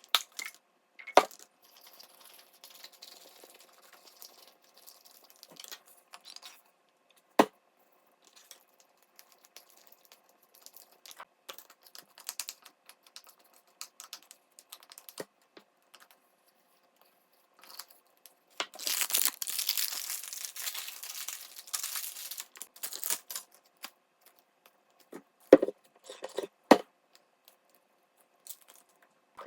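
Slime ingredients being mixed by hand in a container: scattered clinks and knocks of a utensil against it, with several seconds of louder scraping-like noise about two-thirds of the way through.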